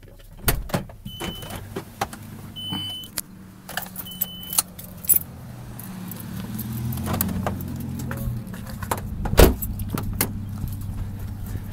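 Sounds of getting out of a car: keys jangling and handling clicks, with three short high beeps in the first few seconds. A low car hum builds through the middle, and a single loud thump comes near the end.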